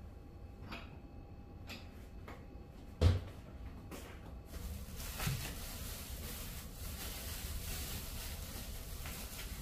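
A few light clicks from a kitchen wall cupboard, then the cupboard door shut with a single sharp thump about three seconds in. After that a faint steady hiss of room tone, with one soft knock.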